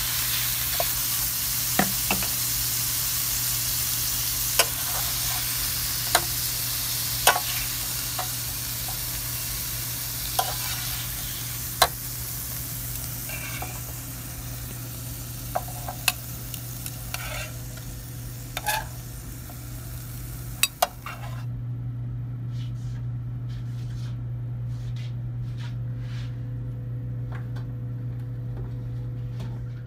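Asparagus spears sizzling in a hot pan, with a wooden spatula tapping and scraping as they are stirred. About two-thirds of the way through, the sizzle cuts off suddenly, leaving a steady low hum and a few light clicks.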